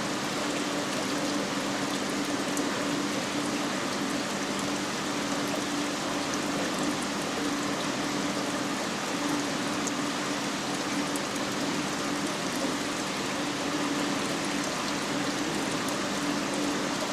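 Marine aquarium's water circulation running: a steady rush of moving water with a low, even pump hum underneath.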